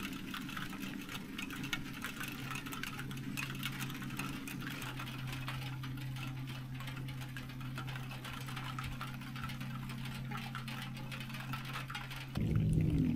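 Light rain pattering as fine scattered drops, over a steady low hum. Near the end a louder, fuller sound cuts in with a brief falling tone.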